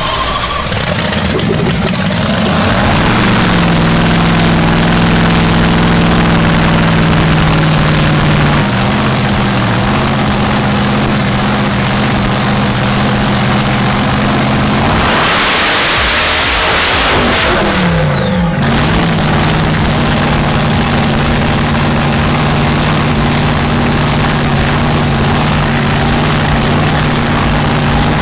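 Dragster engine running very loud at a steady idle, with one rev about fifteen seconds in, the pitch climbing and then dropping back to idle about three seconds later.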